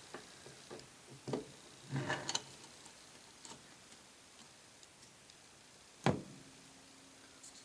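Cast-iron side cover and shift forks of a Warner three-speed transmission being worked into place on the case by hand: a few light metal clicks and a short rattle, then one sharp knock about six seconds in as the cover drops into position.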